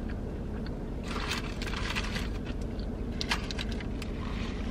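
Eating sounds: small crackly clicks and rustles of chewing and handling the food and plastic fork, clustered between about one and four seconds in, over a steady low hum inside the car cabin.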